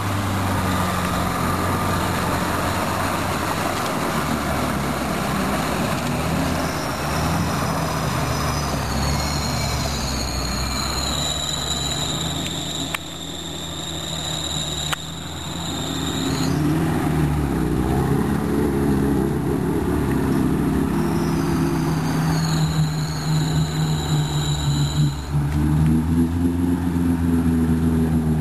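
Off-road vehicle's engine running steadily, then revving up about two-thirds of the way through and again near the end. A high thin whine comes and goes twice over it.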